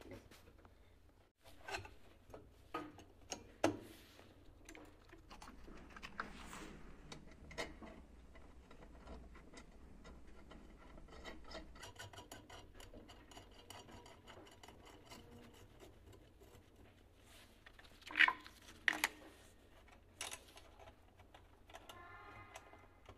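Fairly quiet handling noise as a perforated steel pipe-support strap is fitted and bolted to a PVC drain pipe: low rubbing and scraping with scattered sharp clicks and knocks, a few in the first few seconds and the loudest pair a little before the end.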